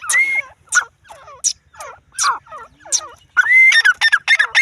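Grey francolin (teetar) calling: loud, sharp whistled calls, spaced out at first, then a quick run of them at about four a second near the end.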